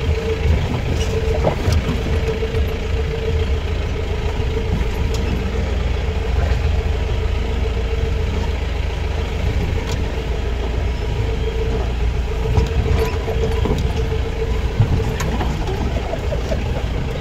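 Off-road jeep's engine running at low speed on a rough dirt track, heard from inside the cabin: a steady low rumble with a constant mid-pitched whine, and a few short knocks.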